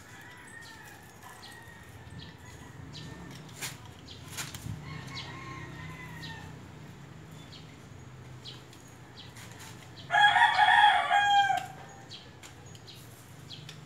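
A rooster crows once, about ten seconds in, for nearly two seconds; it is the loudest sound. Around it are faint short bird calls and light clicks and rustles of leaves being handled.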